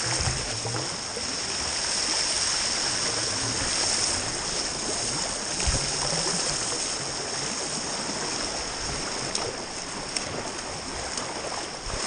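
Fast water rushing and breaking around a sea kayak's bow as it surfs a standing wave, heard close to the water surface, with a few brief splashes and knocks.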